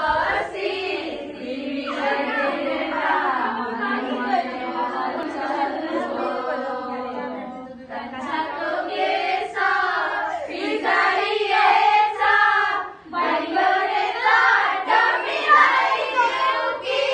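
A group of girls singing a song together, with brief breaks in the singing about halfway through and again about two thirds of the way in.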